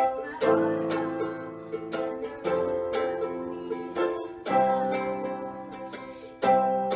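Strummed chords on a plucked string instrument, each chord ringing on for a second or two before the next strum, as the accompaniment to the song.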